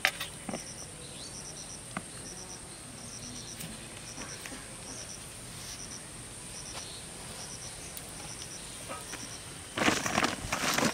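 A cricket chirping in short, high triplets repeated at uneven intervals over a steady high insect hiss. Near the end comes a loud burst of rustling as a woven plastic sack is handled.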